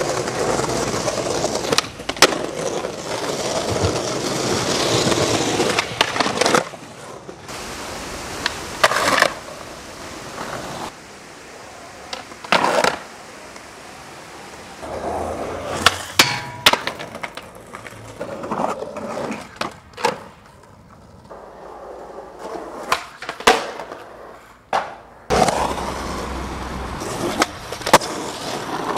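Skateboard wheels rolling over pavement and concrete, broken by many sharp clacks as the board is popped and lands. The rolling comes and goes as the clips change.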